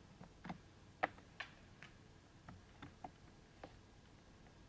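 Faint, irregular clicks of computer keys being pressed, about nine short taps spread across a few seconds.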